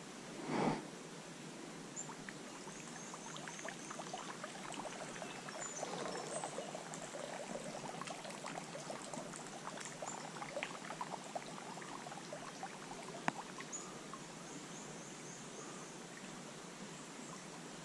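Small woodland trout stream trickling and gurgling over a shallow riffle, with a short loud burst of noise about a second in. Faint high bird chirps come through twice.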